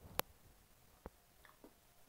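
Mouth clicks and smacks from chewing a cream roll with the mouth closed: one sharp click just after the start, a second about a second in, and two fainter ones a little later.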